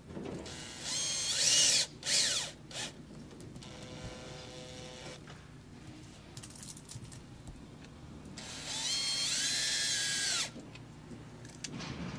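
Cordless drill/driver driving screws through an RV water heater flange into the sidewall. It gives a short run about a second in and a brief one just after two seconds, then a longer run near the end whose whine rises and holds before cutting off.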